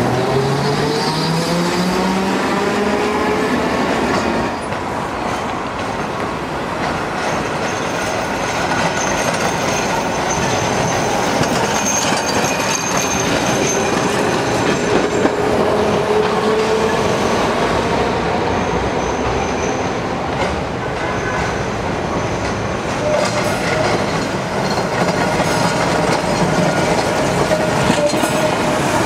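Milan street trams on street track: an articulated tram's whine rising in pitch as it pulls away, then a Peter Witt streetcar rolling past with wheel squeal and clacking over the rail joints, with car traffic going by.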